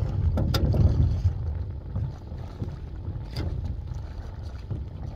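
Wind rumbling on the microphone, with a few short splashes as a hooked redfish thrashes at the surface and is scooped into a landing net beside the boat.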